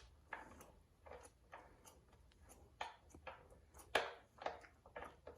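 Light, irregular clicks and taps from hands handling small tools or engine parts, with a sharper knock about four seconds in.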